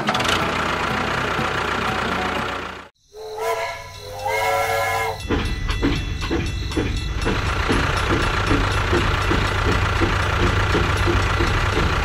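Steady motor-like running noise that cuts off about three seconds in. Then a toy steam train's whistle sounds two short toots, and the train runs along its plastic track with a steady chugging beat, about three a second.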